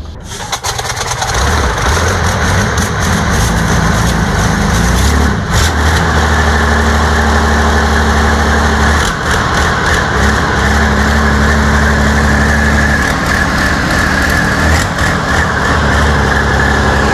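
Soviet V-55 V12 tank diesel, run bare on a stand, catching and starting about a second in, then running steadily with its speed dipping and picking back up a few times. It is running after long storage, now that a stuck fuel-pump control arm has been freed so that fuel reaches the cylinders.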